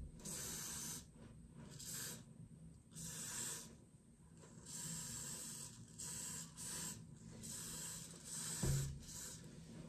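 Aerosol spray can giving a series of short hissing bursts, roughly one a second, with a soft thump near the end.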